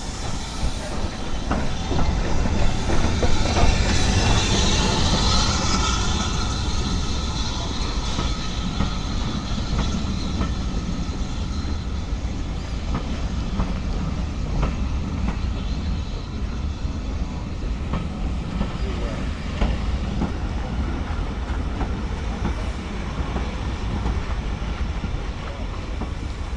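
Heritage steam train passing close by: the locomotive goes past first, loudest a few seconds in, then the coaches roll by with wheels clicking steadily over the rail joints.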